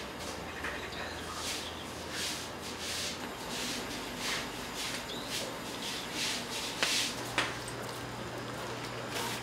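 Gloved hands handling food at a table: short rustling and rubbing noises, one every half second to a second, over a low steady hum.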